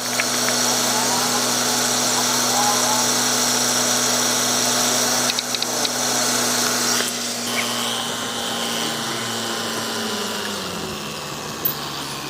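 A machine hums steadily, with a short run of ticks about five and a half seconds in; about ten seconds in its pitch falls as it winds down.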